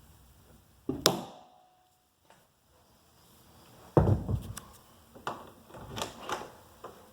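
Knocks and thumps from a door and its hinge being worked on: a sharp knock with a brief metallic ring about a second in, then a heavy thump about four seconds in and a run of lighter knocks.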